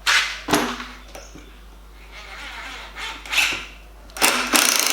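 A few short knocks and clicks as the tool and screw are set in place, then about four seconds in a Bosch 12 V cordless impact driver starts hammering, driving a 100 mm chipboard screw with a fast, even rattle.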